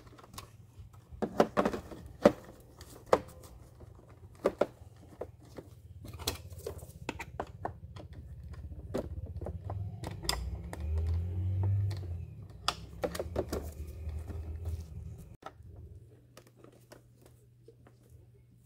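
Sharp plastic clicks and knocks as a replacement lithium-ion battery pack is seated in a Samsung robot vacuum's battery bay and the cover is fitted, with a low handling rumble through the middle that stops suddenly.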